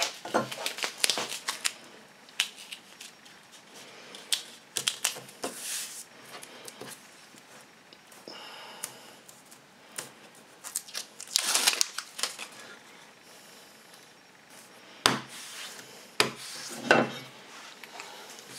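Handling noises on a wooden workbench: the paper backing of double-sided tape rustling and crinkling as it is peeled and handled, among scattered clicks and taps. Two loud knocks near the end as the fluted wooden strip is set down on the bench.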